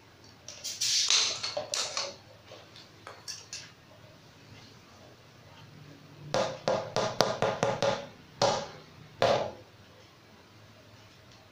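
Handling noises of a pump hose and an inflated rubber inner tube on a tile floor: a rustle as the hose is taken off the valve about a second in, then a quick run of taps and knocks from about six seconds, and two more knocks a little later as the tube is handled and set down.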